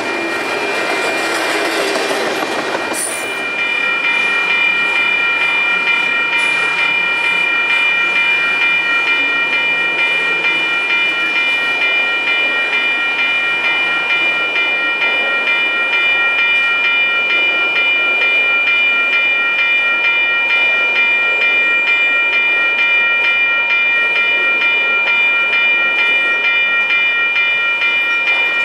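Long intermodal freight train rolling past at speed, its wheels clicking over the rails. The sound changes abruptly about three seconds in, and from then on a steady high-pitched whine runs over the rumble of the passing cars.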